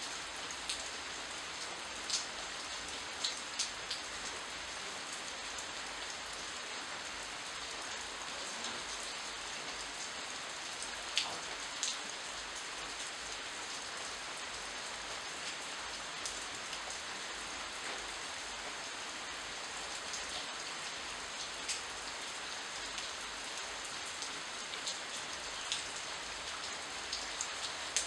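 Steady rain falling on leaves, an even hiss with a sharp tap of a nearby drop now and then.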